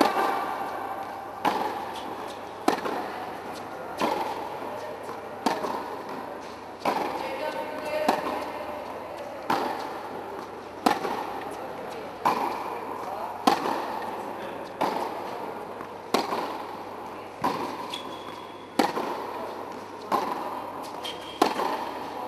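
Tennis ball being hit back and forth in a rally on an indoor court: sharp racket strikes about every one and a half seconds, each dying away in the hall's echo.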